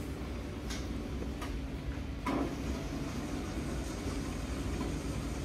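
Large commercial planetary mixer running steadily with a low hum as it beats chocolate crunch mixture, with a few light clicks in the first half.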